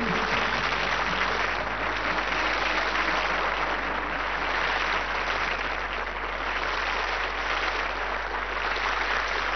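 Studio audience applauding steadily at the end of a song, the music's last notes dying away in the first second or two.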